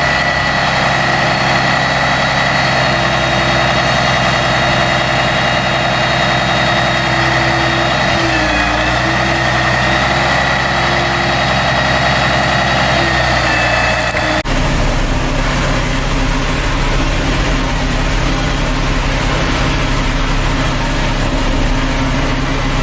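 Heavy farm harvest machinery running steadily, with a steady high whine over the engine. About fourteen seconds in, the sound changes abruptly to a lower, rougher engine sound.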